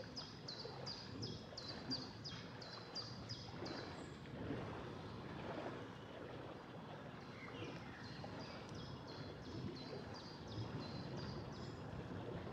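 A songbird repeating a short, high, falling note about two and a half times a second, in two runs, one in the first four seconds and another from about eight to twelve seconds. Underneath is a steady low noise of the yacht under way on the water.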